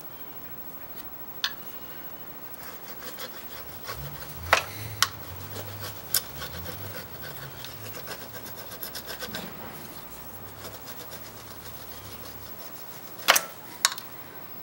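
Hardened steel burnisher stroked along the edge of a thin Japanese saw-blade scraper, metal rubbing on metal, as it turns a new hook on the edge. A few sharp metallic clicks come through, the loudest about four seconds in and near the end.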